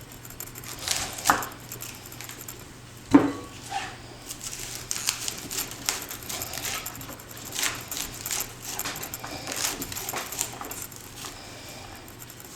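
Knife cutting a head of cauliflower into florets: irregular crisp clicks and snaps, with a heavier knock about three seconds in.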